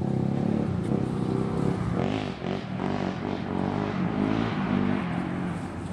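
An engine running steadily, its pitch rising and falling a few times in the middle, as when the throttle is worked.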